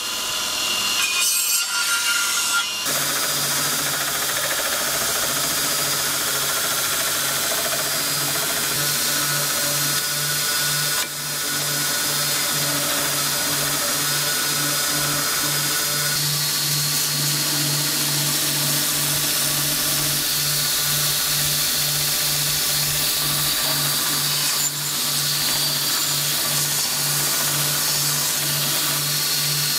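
Power grinders abrading the steel of a cleaver blade, first an abrasive wheel and then a belt grinder: a steady, high grinding hiss over a low hum that throbs at an even rate, with brief breaks where the sound is cut.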